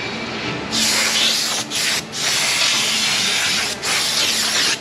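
Aerosol can of CRC brake parts cleaner spraying onto a new brake rotor: a loud hiss in a few long bursts with brief breaks, starting under a second in.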